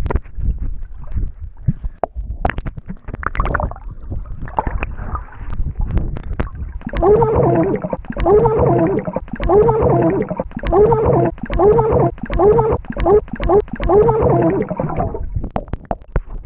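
Underwater recording: thumps and bubbling, then from about seven seconds a muffled child's voice sounding underwater in a rhythmic run of rising-and-falling notes, a little more than one a second, until the camera breaks the surface.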